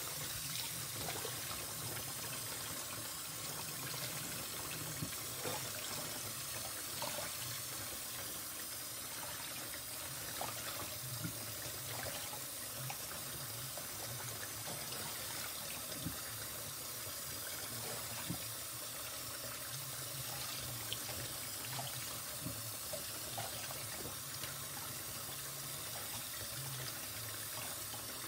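Cold water running from a kitchen tap into a plastic bowl of raw chicken gizzards. Hands stir and rub the gizzards in the water, making steady small splashes.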